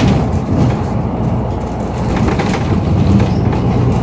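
A moving city bus, heard from inside the passenger cabin: a steady low rumble of engine and road noise.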